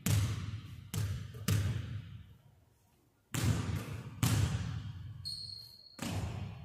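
Basketball bouncing on a hardwood gym floor: separate thuds, each with a long echo off the empty hall, about six of them with a pause of about a second midway. A brief high squeak sounds a little after five seconds in.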